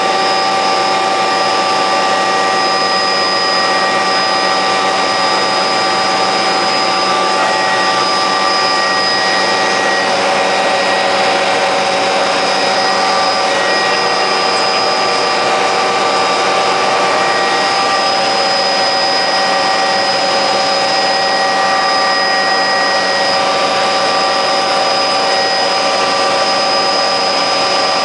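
MD 500 helicopter in cruise flight heard from inside the cabin: its turboshaft engine and rotors make a loud, steady noise with several steady whining tones over it.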